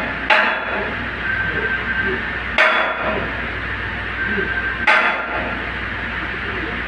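Hammer blows on metal, three strikes a little over two seconds apart, each ringing briefly, over a steady low hum.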